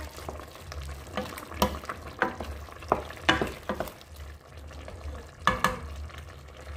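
Wooden spatula stirring squid in a simmering coconut-milk curry, scraping and knocking against the sides of a metal pot, a string of short scrapes with the loudest about five and a half seconds in, over a low sizzle from the pan.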